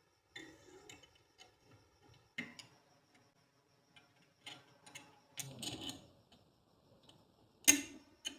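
Small metal parts being handled and knocked together: irregular clicks and clinks with a faint ring, a short scraping stretch a little after the middle, and the sharpest knock near the end.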